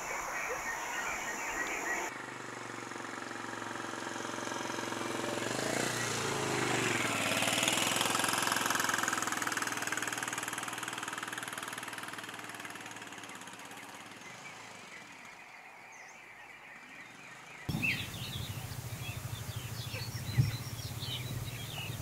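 A motor engine passing by: a steady engine sound swells to its loudest about eight seconds in and slowly fades away. Near the end, short high chirps and clicks follow.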